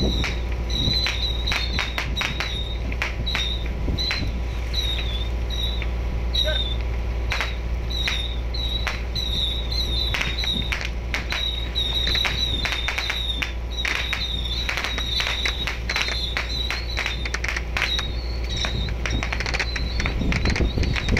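A boat running at sea: a steady low engine drone with wind and water noise, overlaid by short high chirping notes about twice a second and scattered sharp clicks.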